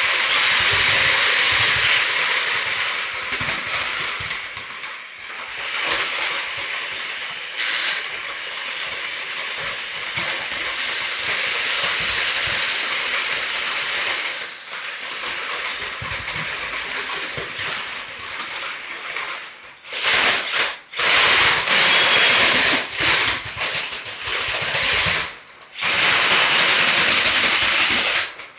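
A shuffler combat robot's cam-driven walking mechanism running, its gears whirring and its UHMW plastic feet scraping and clattering on a concrete floor. From about two-thirds of the way in, it runs in louder spells that stop and start several times.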